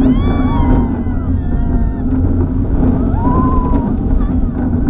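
Mack Rides giant looping roller coaster heard from on board while the train is moving: a steady low rumble of wind buffeting the microphone and the wheels running on the steel track. A few short yells rise and fall over the noise at the start and again about three seconds in.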